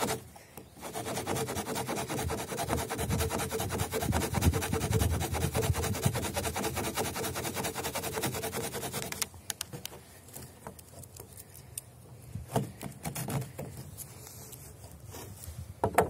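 The small saw blade of a Stanley multi-tool cutting through a thin wooden branch in rapid back-and-forth strokes. The sawing stops about nine seconds in, followed by a few light knocks and handling sounds.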